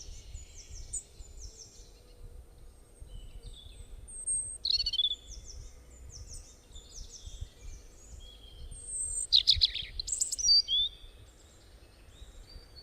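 Small songbirds chirping and singing: rapid, high, downward-slurred chirps and short trills, with the loudest flurry about three quarters of the way through, over a faint low rumble of outdoor background noise.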